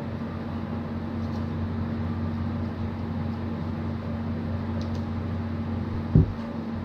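Steady low mechanical hum with a constant pitch, with a single thump about six seconds in.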